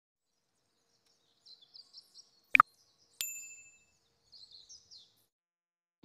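Short, high bird chirps in two clusters, with a sharp double click and then a bright, ringing ding that fades over about half a second between them.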